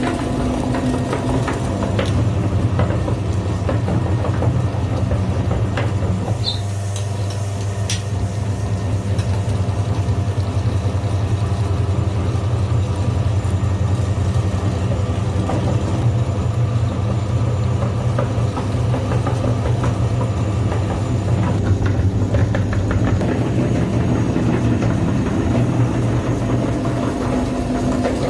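Electric grinder motor running steadily under load, a continuous low hum with a few scattered clicks and ticks.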